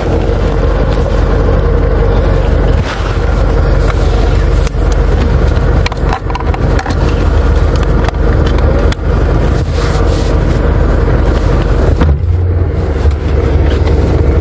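Inside a four-wheel-drive car: loud, steady engine and road rumble with a faint hum, and a few short knocks along the way.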